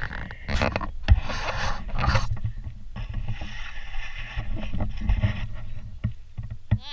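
Handling noise from a GoPro in its housing on a broom stick as it is swung around: a low rumble with rubbing and scraping, and several sharp knocks near the end.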